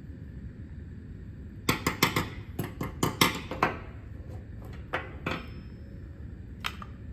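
Sharp metallic clinks and knocks as the muffler is worked off a Stihl 024 chainsaw: a quick run of about a dozen knocks over two seconds, then three single knocks. A steady low hum runs underneath.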